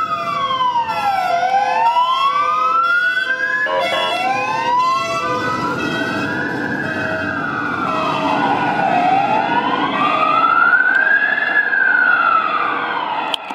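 Mercedes-Benz Sprinter ambulance siren on a slow wail, rising and falling about every four to five seconds as the ambulance drives past on an emergency run. Engine and road noise swell as it passes.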